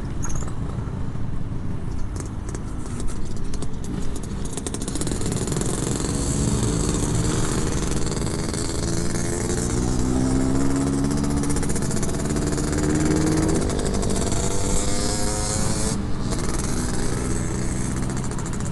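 Motorcycles on the move: the engine notes rise and fall as the revs change, clearest in the middle, over steady wind rush on the microphone. A louder motorcycle riding ahead partly masks a Yamaha RX-King two-stroke with a Packing Power aftermarket exhaust.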